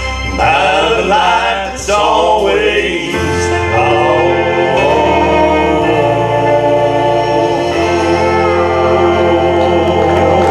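Male gospel trio singing in three-part harmony over instrumental accompaniment. The voices move through a quick phrase, then from about three seconds in sustain one long chord over a steady bass.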